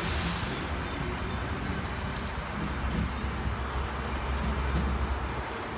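Tangara electric multiple unit pulling away from the platform, a steady rumble of wheels on rail and running gear as it moves off. Its higher sounds fade within the first half second, and the low rumble drops away about five and a half seconds in.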